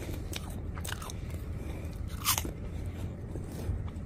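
Crunchy cheese puffs being bitten and chewed close to the microphone: a few sharp crunches, the loudest about two seconds in, over a steady low hum.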